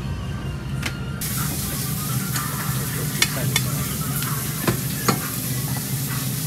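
Sushi rice being worked in a wooden hangiri tub: a steady hiss-like rustle with scattered light clicks and taps, over a constant low kitchen hum.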